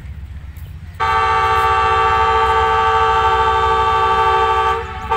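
Horn of an approaching ZCU-30 diesel locomotive: one long, loud multi-note blast starting about a second in, followed by a short blast near the end.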